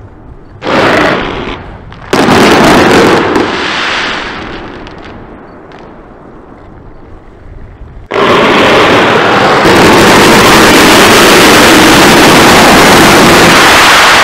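Daytime coloured-smoke fireworks going off. There are two loud bursts of shots and bangs a second or so apart near the start. About eight seconds in, a sudden dense, unbroken barrage of launches and bursts starts and keeps going.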